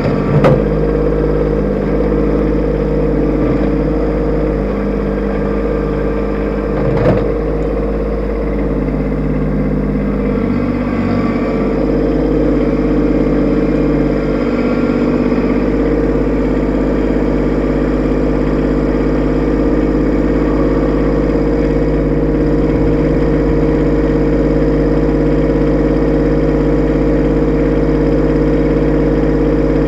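Kubota B2601 compact tractor's three-cylinder diesel engine running steadily. Two brief knocks, one right at the start and one about seven seconds in, come as the front loader bucket works against a buried rock.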